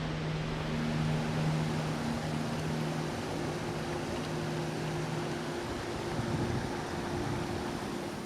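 A vehicle running: a steady rushing noise with a low mechanical hum whose tones shift a couple of times.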